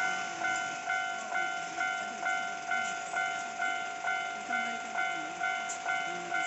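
Japanese railway level-crossing warning bell ringing: an electronic ding repeated about twice a second, each stroke dying away. It signals that the crossing is closed for an approaching train.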